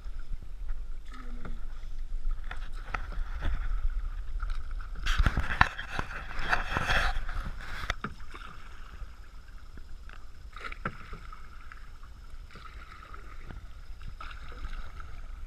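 Canoe being paddled: paddle strokes splashing in the water with scattered knocks, loudest in a stretch of splashing about five to eight seconds in.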